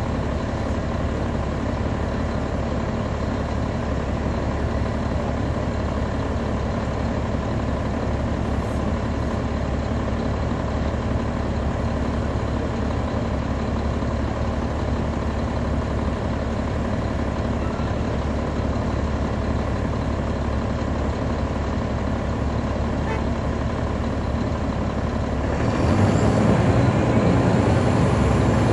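Caterpillar C13 ACERT diesel engine of a NABI 40-foot transit bus, heard from the rear seat just ahead of the engine bay, running at a steady idle; about 26 seconds in it gets louder as the engine takes on throttle.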